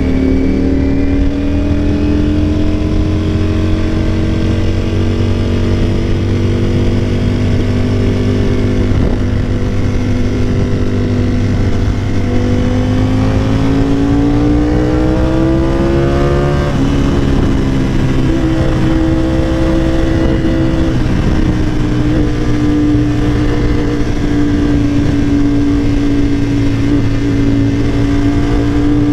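Sport motorcycle engine running under way at a steady cruise. About halfway through the revs climb slowly for a few seconds, then drop suddenly as the rider shifts up, and the engine settles back to an even run.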